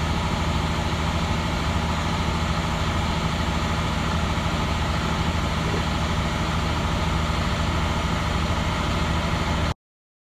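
Navistar MaxxForce DT inline-six diesel engine running steadily while a parked forced DPF regeneration heats the exhaust filter. The sound cuts off abruptly near the end.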